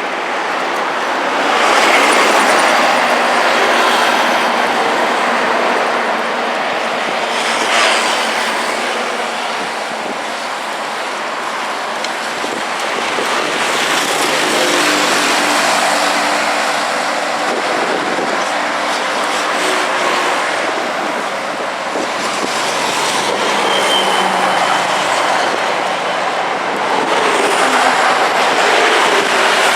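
Heavy city street traffic moving slowly: a continuous wash of cars and trucks passing, swelling and fading as each vehicle goes by, with engines droning at low speed. There is a short sharp knock about eight seconds in and a brief high squeal near the end.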